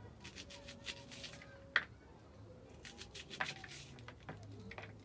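Kitchen knife slicing through a head of cabbage held in the hand, a run of short crisp crunching cuts, with one sharper click just under two seconds in.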